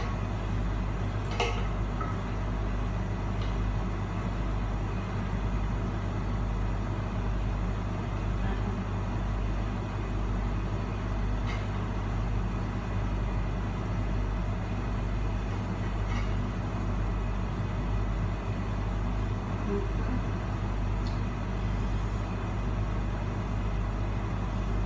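Steady low hum of a running kitchen appliance motor, unchanging throughout. A few faint light clicks of a metal spatula against the grill pan and serving plate as burger patties are lifted across.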